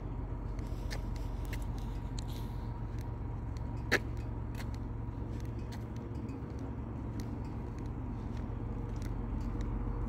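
Bicycle rolling along a paved path: a steady low rumble of the tyres, with scattered light clicks and rattles and one sharper click about four seconds in.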